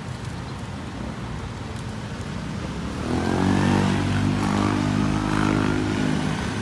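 Street traffic noise, with a motor vehicle's engine growing louder about three seconds in and running steadily as it passes close by.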